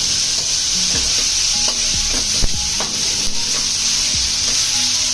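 Bitter gourd and potato pieces frying in mustard oil in a pan, with a steady sizzle, while being stirred. The spatula scrapes and knocks against the pan, most sharply about two and a half seconds in.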